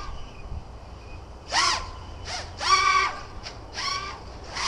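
A crow cawing, with four or five caws about a second apart.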